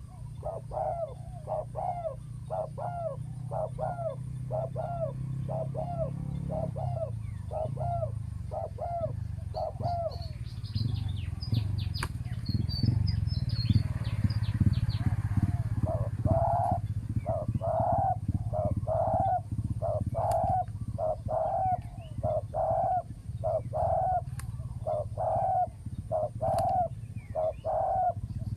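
Spotted doves cooing in a fast series of about two notes a second. The cooing stops for a few seconds near the middle while a small bird chirps high and thin, then resumes. A steady low rumble runs underneath.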